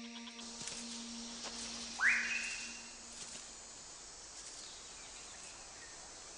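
Rainforest ambience: a steady insect hiss, with one loud whistled bird call about two seconds in that sweeps sharply up in pitch and then holds briefly.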